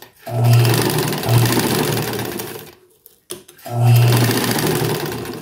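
Sewing machine driven by a washing-machine motor stitching through four folds of carpet, running very fast. It goes in two runs of about two seconds each, with a pause between. Each run starts with a low motor hum under a rapid needle clatter and then dies away.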